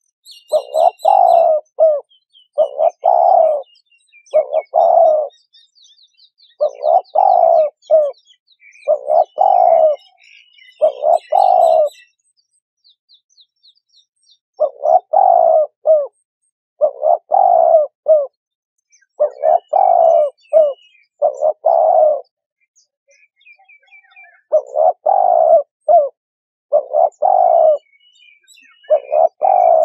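Spotted dove cooing over and over, each phrase repeated about every one to two seconds, with short pauses about twelve and twenty-two seconds in. Faint high twittering from small birds sounds behind it during the first half.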